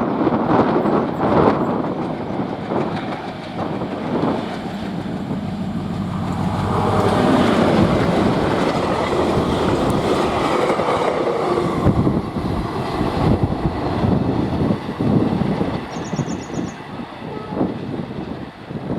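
Indian Railways Oxygen Special freight train passing at speed: wagon wheels clatter over the rail joints in quick rhythm over a steady rumble, easing off a little near the end.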